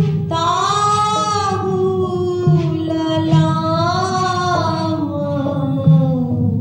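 A woman singing a Hindi devotional song in long held notes that slowly bend and glide, over a steady musical accompaniment, with a few drum strokes underneath.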